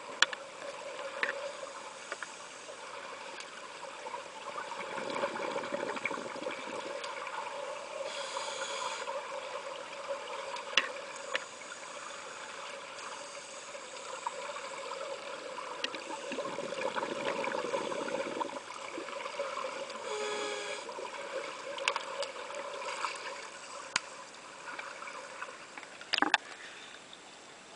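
Scuba divers' regulators and exhaled bubbles gurgling, heard underwater in a swimming pool. The bubbling swells louder twice, over a steady hum, with scattered sharp clicks.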